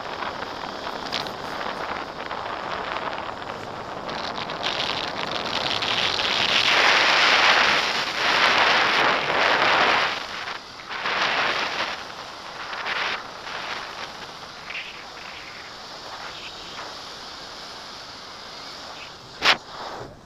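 Wind rushing over the action camera's microphone in flight, swelling loudest about a third of the way in and then easing in gusts. One sharp knock near the end.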